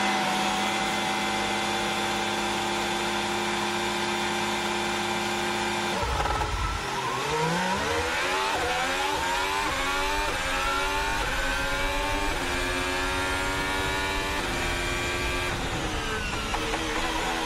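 A Ferrari SF71H Formula 1 car's 1.6-litre turbocharged V6 hybrid engine, heard onboard. It is held at steady revs on the grid, then launches about six seconds in and accelerates through a quick series of upshifts, each a rising sweep cut short. The revs fall away near the end.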